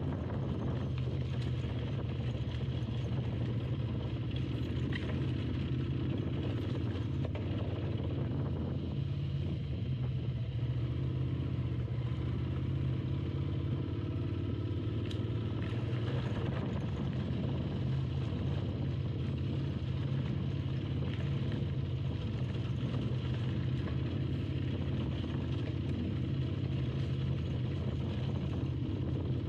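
Adventure motorcycle engine running steadily at low trail speed over a dirt and rock two-track, with a constant low hum and no big changes in throttle.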